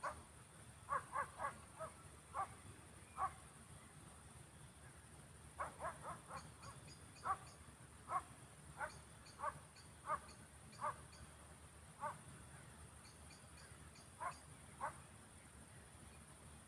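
Roe deer barking: a series of short, hoarse barks, some in quick runs of three or four, others spaced about a second apart. Beneath them run a steady high insect drone and brief runs of faint rapid ticking.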